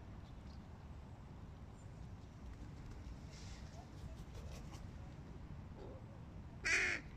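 A hooded crow gives one short caw near the end.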